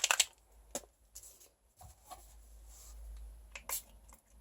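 Small pump-spray bottle of ink being pressed by hand: a few scattered clicks of the nozzle and short, weak spritzes. The bottle is sputtering rather than spraying freely.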